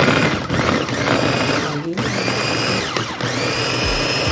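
Electric mini food chopper with a glass bowl grinding carrots and potatoes, run in pulses: the motor whine stops and spins up again twice, rising in pitch each time, over the clatter of the blades chopping the vegetables.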